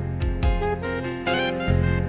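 Instrumental background music: a melody of held notes over sustained low tones.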